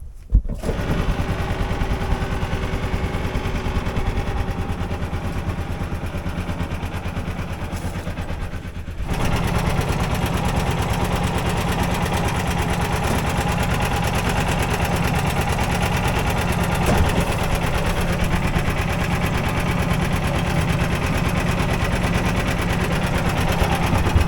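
A farm machine's engine running steadily with an even low pulse. It comes in sharply about half a second in and gets louder about nine seconds in.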